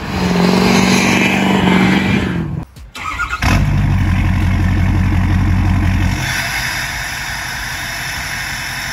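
A pickup engine held at high revs through a tyre-smoking burnout, cut off sharply. Then a 2015 Ford F-250's 6.7 L Powerstroke V8 turbo diesel on its factory tune comes in abruptly. It runs louder for about three seconds, then settles to a steady idle.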